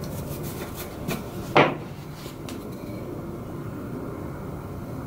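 A paintbrush briefly swept over a freshly sanded wooden table leg, a few short scratchy strokes, then one sharp wooden knock on the bench about a second and a half in. After that only a faint steady low hum.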